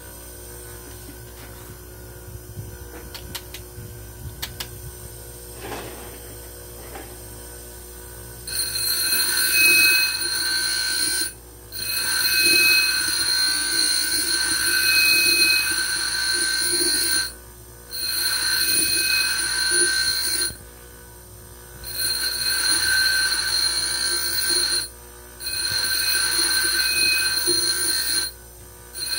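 Bench grinder wheel grinding down a small steel gaff-blade blank, in passes of a few seconds each with brief pauses between. Each pass gives a loud, steady, high-pitched ringing whine. For about the first eight seconds only the grinder's motor is heard running, with a few light clicks.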